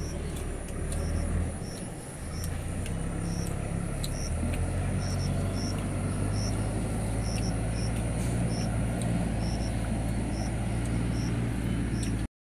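Outdoor background: a steady low rumble with short, high chirps recurring irregularly about once or twice a second, cutting off suddenly near the end.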